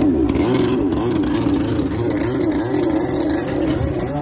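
Stand-up jet ski engine running loud, its pitch rising and falling about twice a second as the throttle is worked.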